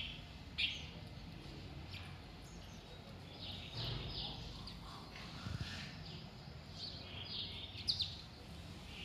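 Birds chirping in short, scattered high calls, with a cluster of several chirps near the end, over a steady low hum.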